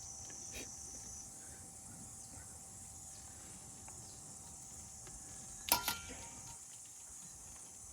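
Steady, high-pitched chorus of insects. Near the end, a quick pair of sharp clicks or knocks.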